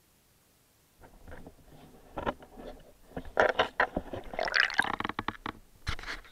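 Near silence for about a second, then a waterproof camera being handled and lifted out of a shallow pond: irregular knocks and scrapes against its housing and water sloshing, loudest in the middle.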